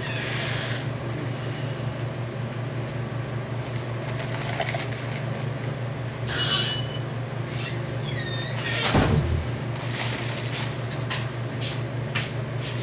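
Steady low machine hum with an even rushing noise, like running room machinery. A few short squeaks and clicks sound over it, and there is one low thump about nine seconds in.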